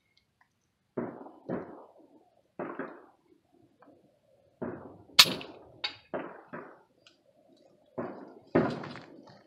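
A series of air rifle shots from the firing line: about ten dull pops at uneven intervals, with one sharper crack about five seconds in.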